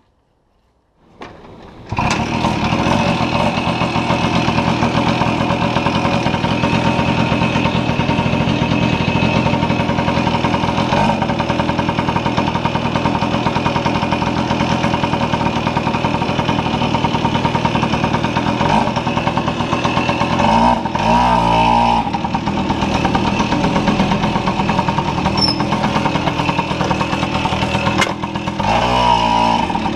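Tomos Targa moped's small two-stroke engine starting about a second in, then running steadily as the moped rides off. Its uneven beat is the four-stroking of a two-stroke running rich.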